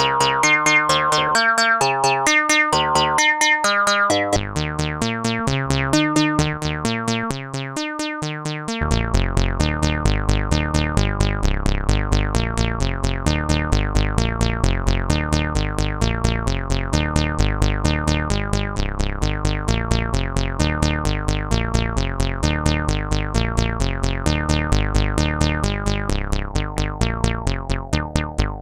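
Behringer Octave Cat analog monosynth playing a sequence: short, choppy notes jumping in pitch with gaps between them, then about nine seconds in it changes to a continuous, bass-heavy pattern of rapid repeated notes.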